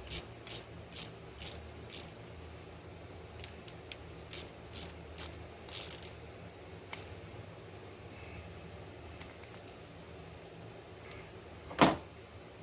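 Light metallic taps on the housing of a 1991 Honda TRX200D's electric starter motor, a quick run of clinks over the first several seconds and one louder knock near the end. The tapping is meant to free the binding starter so that its shaft turns.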